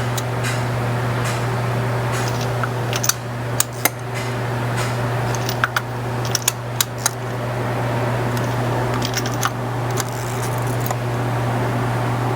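Steady low hum with scattered sharp metallic clicks from a hand wrench working on the engine's fasteners: a handful of clicks between about three and seven seconds in and a few more near ten seconds, as the tightness is checked.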